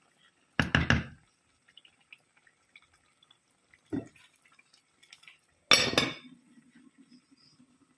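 Cooking pot and utensils clattering. There is a cluster of knocks about a second in, a single knock midway, and a loud metal clank with a short ring near the end, followed by a faint low hum.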